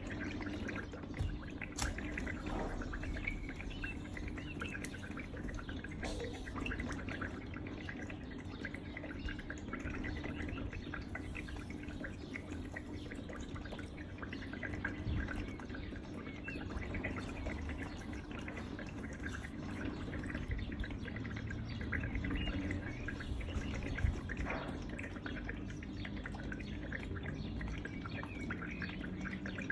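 Steady trickling and dripping of water from a small tabletop decorative fountain, with a few light clicks and knocks.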